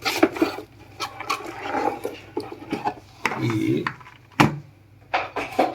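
Handling noise as the keyboard's box is moved aside and the keyboard is picked up: scattered knocks, taps and rubbing of cardboard and plastic, with one sharper knock about four seconds in.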